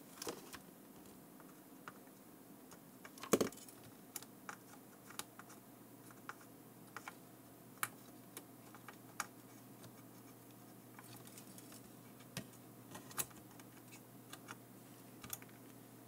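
Small sharp clicks and taps, irregular and a second or so apart, of hand tools working on a circuit board while a surface-mount push-button switch is removed, with one louder knock about three seconds in, over a faint steady hum.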